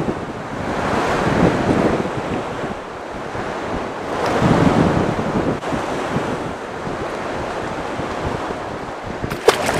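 Wind buffeting the microphone over sea washing around a small boat, swelling twice. There is a single sharp knock near the end.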